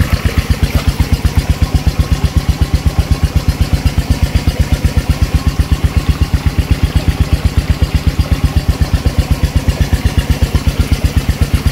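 Irrigation water-pump engine running steadily with an even beat of about seven pulses a second.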